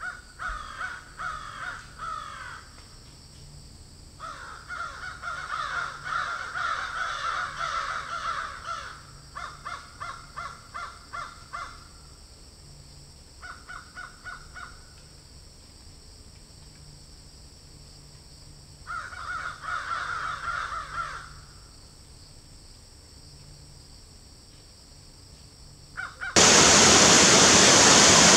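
A bird calling in five bouts of rapid repeated calls with pauses between; one bout is a quick, even series. Near the end, the steady rush of a waterfall cuts in suddenly, much louder than the calls.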